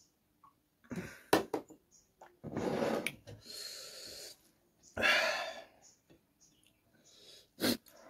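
A man breathing hard through the mouth, with heavy breaths about 2.5 and 5 seconds in and a thin hiss of air drawn in between: a reaction to the heat of spicy curry and green chilli. Sharp mouth clicks come about a second in and near the end.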